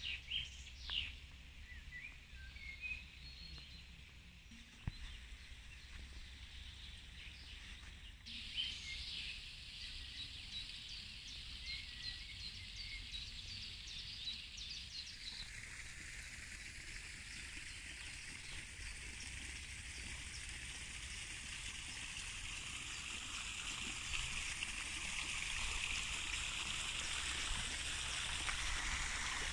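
Outdoor ambience of small birds chirping and singing during the first half. Then a steady rush of running water sets in and grows louder toward the end.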